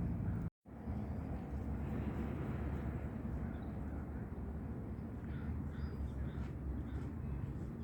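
Outdoor lake ambience: a steady low rumble of distant traffic with faint, short bird chirps scattered through it. The sound cuts out completely for an instant about half a second in.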